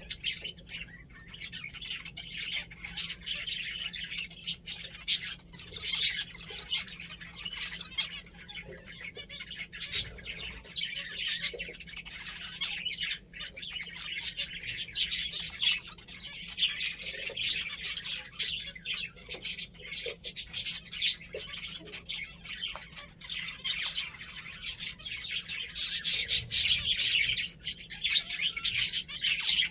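A group of pet finches chirping, with many short, high calls overlapping without a break and a louder flurry near the end.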